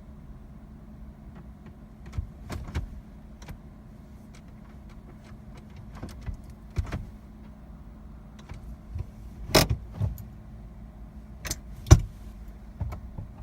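Scattered clicks, knocks and rattles of handling inside a parked car with the engine off, over a steady low hum; the two sharpest clicks come about nine and a half and twelve seconds in.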